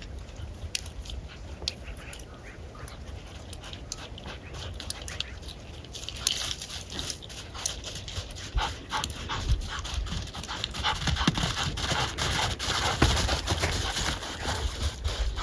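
Dog panting close by, among rapid scuffs and clicks that get louder and busier about six seconds in.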